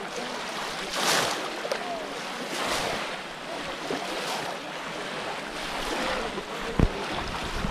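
Shallow pond water splashing and sloshing as many people wade and work fish traps through it, coming in surges every second or two. A short low thump near the end.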